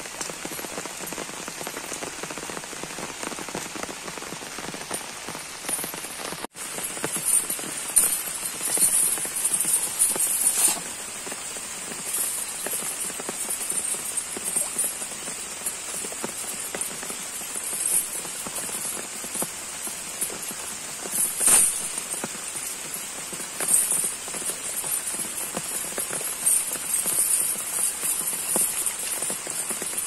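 Steady rain falling on water and broad leaves, a constant hiss with a few brief louder spatters.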